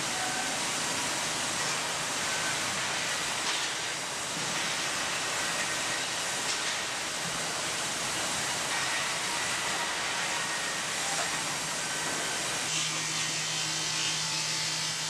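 Woodworking factory machinery running with a steady noisy hiss, joined near the end by a steady low hum.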